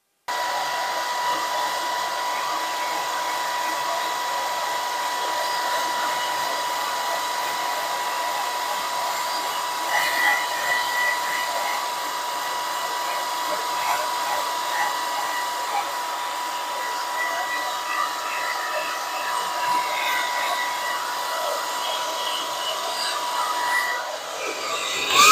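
Handheld hair dryer switched on and running steadily: an even blowing hiss with a thin, high, steady whine from its fan motor.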